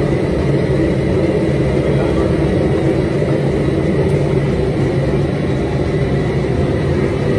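Steady low rumbling noise with a constant hum, even in level throughout.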